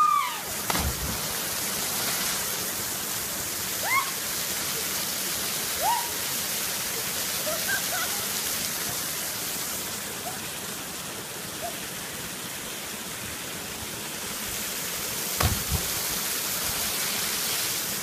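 Steady rush of a waterfall pouring over rock close by, with a few short shouts. About three-quarters of the way through comes a single splash with a low thump as a jumper hits the lagoon.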